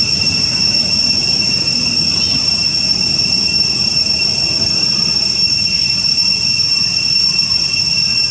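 A steady, unbroken high-pitched insect drone holding one pitch throughout, over a low background rumble.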